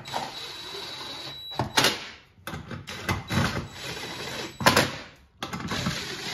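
Cordless impact driver running bolts into a plastic engine splash shield, in several short runs with a couple of sharp clicks between.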